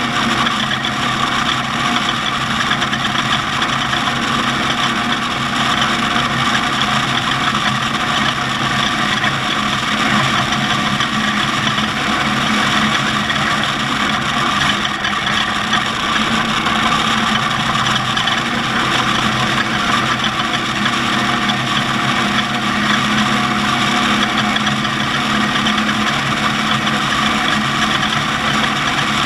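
Off-road race vehicle's engine running steadily, with little change in pitch.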